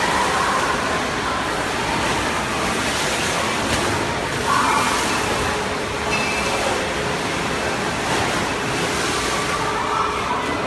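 Water in a partly filled swimming pool sloshing and splashing against the pool walls, a steady rushing wash with a louder surge about halfway through. The water is set moving by the ship rolling in rough seas.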